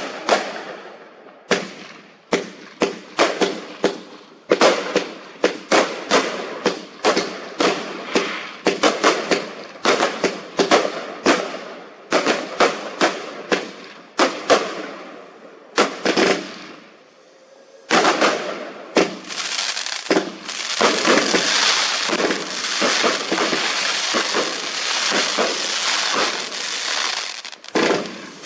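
Fireworks going off in a rapid string of sharp bangs, two or three a second. After a short lull about sixteen seconds in, a dense, nearly continuous crackling volley follows and stops shortly before the end.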